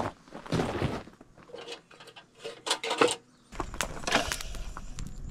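A small metal billy pot being set on a twig fire among stones: scattered clinks and knocks of metal against rock and gravel.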